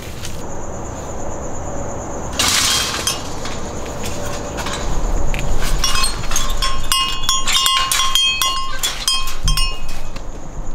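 Metal clinking and rattling of a padlock and latch being worked on a wrought-iron gate: many sharp clinks with a ringing tone over several seconds, after a brief burst of noise about two seconds in.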